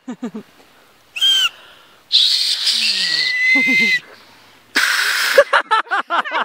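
Hand whistling: air blown through cupped hands in three breathy blows, a short one, then a longer one carrying a steady thin whistle note, then a last one that is mostly air. Bursts of laughter come between the blows.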